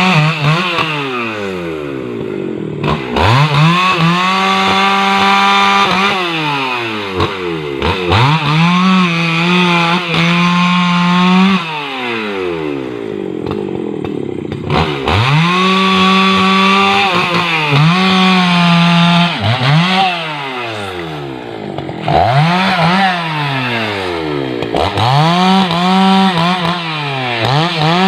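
Husqvarna 288 XP two-stroke chainsaw cutting rubberwood logs. The engine holds at full throttle, then is let down toward idle and revved back up again, about seven times over.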